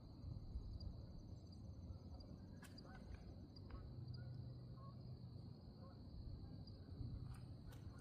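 Faint, steady, high-pitched insect trilling, with a few soft clicks.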